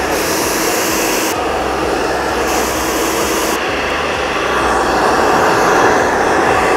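Handheld hair dryer blowing steadily while hair is styled with a round brush. A sharper hiss comes in twice in the first half as the airflow shifts.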